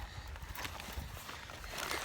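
Footsteps on grass with clothing rustle and handling noise: a few soft, irregular thuds over a low rumble.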